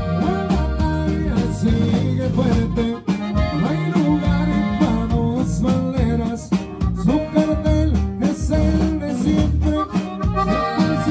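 Live norteño band playing a song: button accordion carrying the melody over guitar and a drum kit keeping a steady beat.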